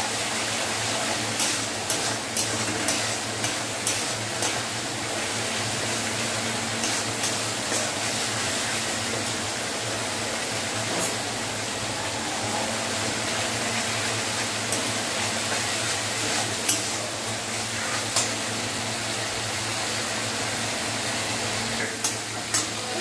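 Mustard-and-poppy-seed masala paste sizzling steadily as it fries in oil in an aluminium kadai, the oil already separating out of the masala. A metal spatula scrapes and taps against the pan now and then as it is stirred.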